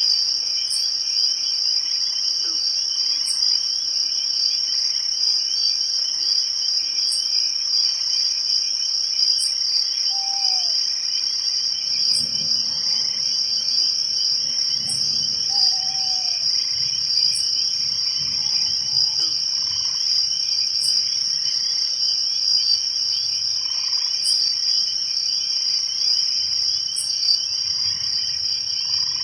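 Night-time insect chorus of crickets and other insects: a dense, steady high-pitched trill, with a short sharp chirp every two to three seconds and a few brief lower calls now and then.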